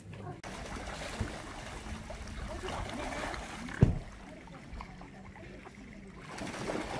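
Water splashing and lapping as a crowd of swans and coots paddles close to the railing. There is a single sharp knock just before the four-second mark.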